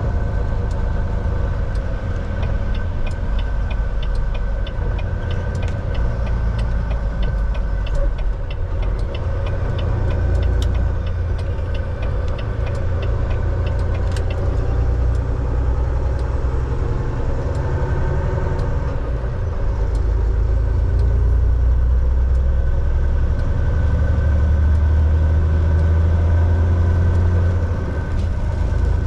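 Semi-truck's diesel engine running under way, heard from inside the cab as a steady low drone with road noise. A regular ticking runs through the first half, and the engine drone grows louder in the last third.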